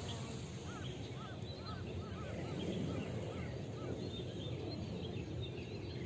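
Birds calling outdoors: a busy run of short, repeated chirping notes over a steady low background rumble.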